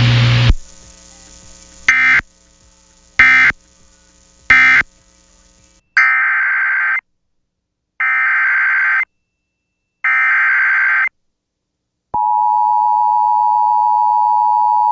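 Emergency Alert System (SAME) tones from a NOAA Weather Radio broadcast. Three short screeching data bursts mark the end of one warning, then three one-second header bursts begin the next. About twelve seconds in, the steady single-pitch Weather Radio warning alarm tone starts and holds.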